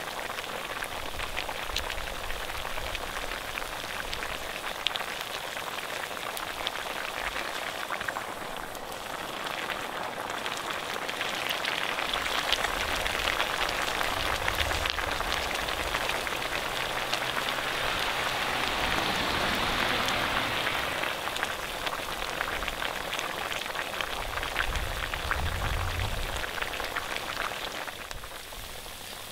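Pork frying over a fire: a steady sizzle with fine crackles, swelling louder for several seconds in the middle and easing off again.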